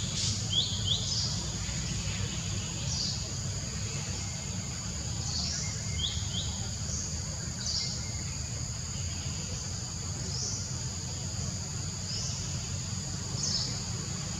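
Forest ambience: a steady, high insect drone, with a short rising chirp repeating every two to three seconds and a few quick paired bird-like chirps, over a low steady rumble.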